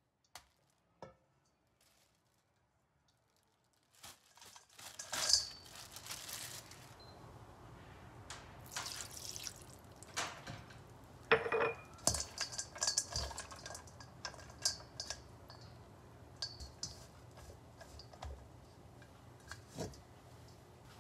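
Kitchen prep sounds: dried squid strips handled in a stainless steel bowl, with water dripping and the bowl clinking against the board. Nearly silent for the first few seconds, then a steady low hum under irregular clicks and clatters.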